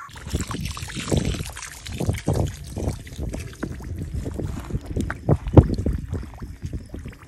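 Lime being stirred into water by hand in a mixing tub: irregular sloshing and splashing strokes, the strongest about five and a half seconds in.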